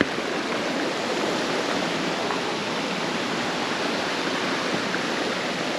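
Waterfall water rushing steadily, a constant even hiss with no change in level.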